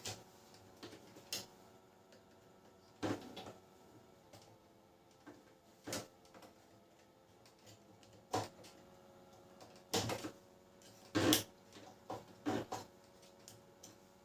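Irregular clicks and knocks of plastic parts being handled as the side gear assembly of a Canon LBP6030 laser printer is taken apart, the loudest knocks coming in small clusters about three, ten and eleven seconds in. A faint steady hum runs underneath.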